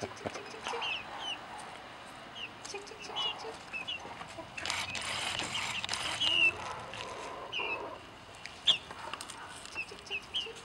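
Young Ameraucana chickens, about five weeks old, giving short scattered peeps and chirps. A louder stretch of rustling noise about halfway through.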